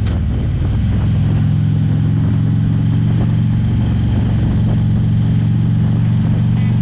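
Harley-Davidson touring motorcycle's engine running steadily at cruising speed, a low, even note with no gear changes or revving.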